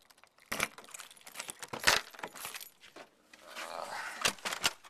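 Clicking, rattling and knocking of small objects being handled and rummaged through, with a louder knock about two seconds in and a short rustle past the middle.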